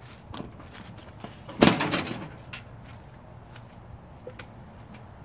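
One loud clunk about a second and a half in, dying away over half a second, as the front wheel of a riding lawn mower is handled, with a few faint clicks and taps around it.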